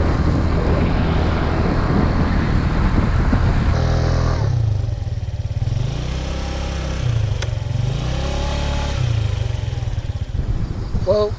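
Moped engine running on the move, with wind rushing over the microphone for the first four seconds. After that the wind drops and the engine note rises and falls as the bike slows and picks up again.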